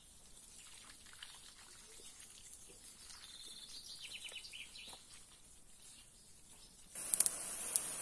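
Faint ticks and rustles of tobacco seedlings being pulled by hand from a wet seedbed, with a bird chirping a short run of high notes around the middle. About seven seconds in, a louder hiss with sharp crackles starts suddenly.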